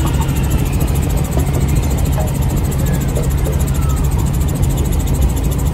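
Helicopter engine and rotor droning steadily in flight, heard from inside the cabin as a constant low hum.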